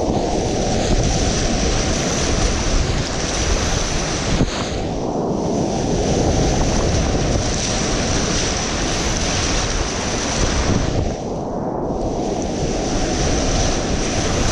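Whitewater rapids rushing around a kayak, heard from the boat itself with wind buffeting the microphone. The high hiss of the water drops away briefly twice, about five and eleven seconds in.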